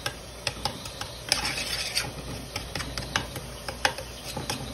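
A spoon stirring and scraping in an aluminium pot of heating fat, with irregular sharp clicks against the metal and a short rasping scrape about a second in.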